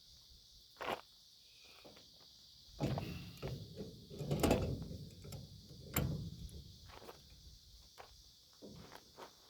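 Metal tools and plow parts being handled: a sharp clank about a second in, then a few seconds of scraping and knocking with two louder clanks around the middle, and a few light ticks near the end.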